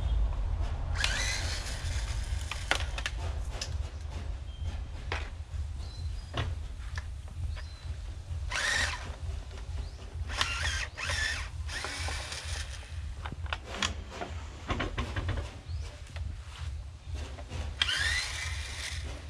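A power drill-driver runs in several short bursts, each one spinning up with a rising whine. A steady low rumble lies underneath.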